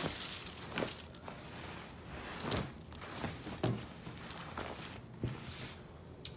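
Handling noise: clothing and a plastic shopping bag being moved about on a table, a few short rustles and soft knocks scattered through.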